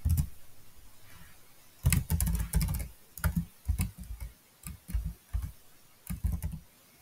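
Computer keyboard being typed on: uneven runs of keystroke clicks starting about two seconds in, with short pauses between runs, stopping just before the end.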